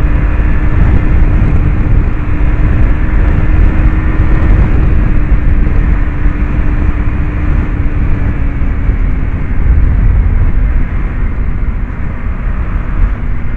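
KTM Duke 200's single-cylinder engine running at highway cruising speed, its note sinking slowly lower as the bike eases off from about 99 to 82 km/h. Heavy wind rush on the handlebar-mounted microphone is mixed in.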